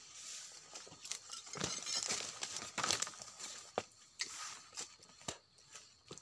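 Dry leaves and plant material rustling and crunching irregularly, with several sharp clicks.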